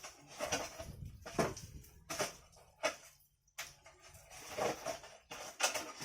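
Irregular knocks and clatter of hard objects being handled, roughly one a second.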